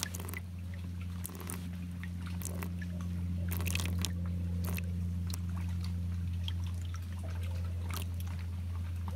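Water splashing and dripping in a live bait well holding pinfish, with small irregular splashes over a steady low hum.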